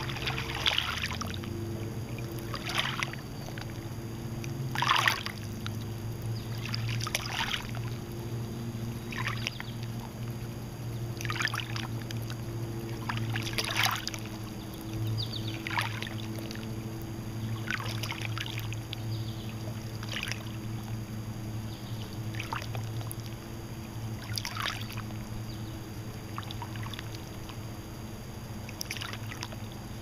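Small waves lapping at a lakeshore, a soft splash about every two seconds, over a steady low hum.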